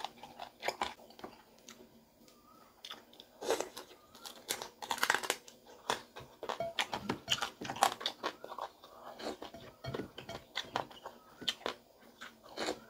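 Close-up eating sounds: crispy fried pig tail being bitten and chewed, in irregular crunches with a short lull about two seconds in and a dense run of crunching around the middle.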